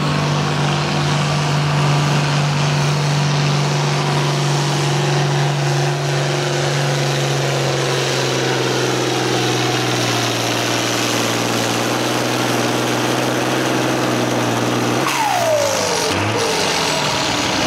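International Harvester turbocharged diesel farm tractor pulling a weight-transfer sled under full load, its engine note slowly sinking as the load builds. About fifteen seconds in the engine pitch falls away quickly as the throttle comes off at the end of the pull.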